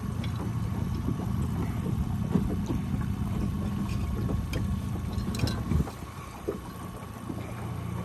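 Boat's outboard motor running steadily underway, a low even hum over the rush of water and air, easing slightly about six seconds in.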